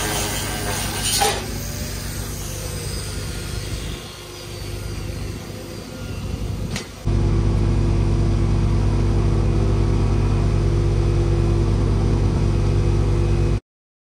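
An engine running steadily with an even low hum, loudest from about seven seconds in, then cutting off suddenly near the end. Before that, lighter rubbing and handling noise and one sharp click.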